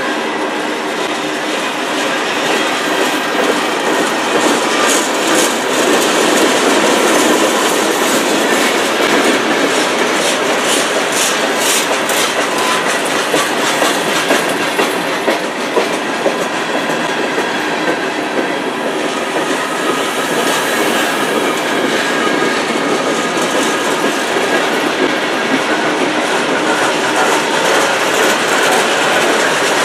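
Freight cars (covered hoppers and boxcars) rolling past, steel wheels clacking over rail joints with a steady rumble and a thin wheel squeal. A run of sharper clicks comes about five to thirteen seconds in.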